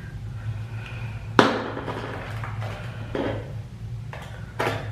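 A box cutter opening a small cardboard candy box: a sharp click about a second and a half in, then several short scratchy cuts and rustles of the packaging.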